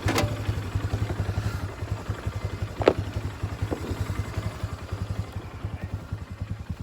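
A four-wheeler's (ATV's) engine idling with a steady, even low pulse. Three short sharp clicks or knocks sound over it, the loudest about three seconds in.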